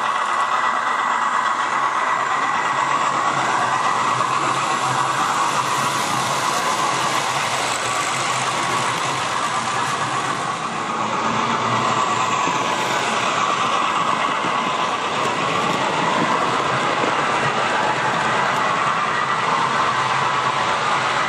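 Hornby OO-gauge A4 model steam locomotive, fitted with a TTS sound decoder, running round the layout with its coaches: a steady running noise of train on track, drifting up and down in pitch a couple of times.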